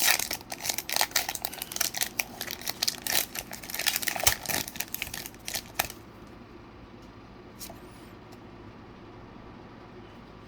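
Foil wrapper of a Pokémon Celebrations booster pack being torn and crinkled open by hand, a dense run of crackles and rustles for about six seconds.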